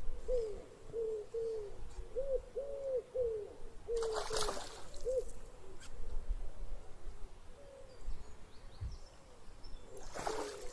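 A hooked fish splashing at the surface in the margin, twice: once about four seconds in and again near the end. Behind it, a rapid series of short hooting calls, about two or three a second, that fades out after the first splash.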